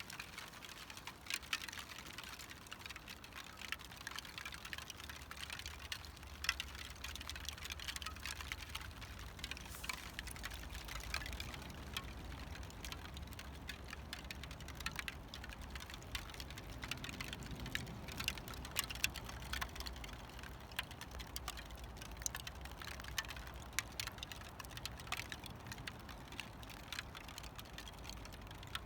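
Raindrops falling on ice: a dense, irregular spatter of small, sharp ticks and clicks.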